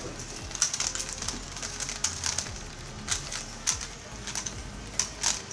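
A speedcube being turned fast during a timed solve: a rapid, irregular run of light plastic clicks and clacks.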